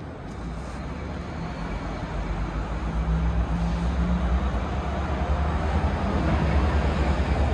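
Low rumble of a vehicle over city street noise, growing steadily louder.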